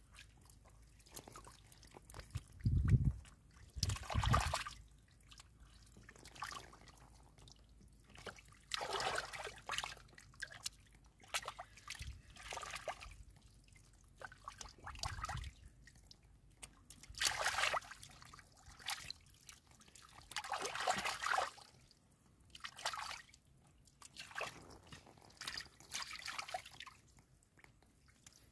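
Hands sloshing and splashing through shallow muddy water in irregular bursts, with a couple of dull thumps about three and four seconds in.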